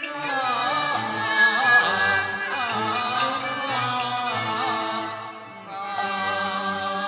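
Cantonese opera music, a melody line sliding and wavering in pitch over the ensemble accompaniment, with a brief dip in loudness about five and a half seconds in.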